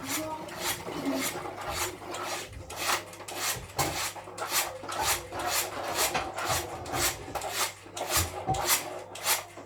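Pancake batter being mixed by hand in a bowl, the utensil scraping round the bowl in quick, even strokes, about two to three a second.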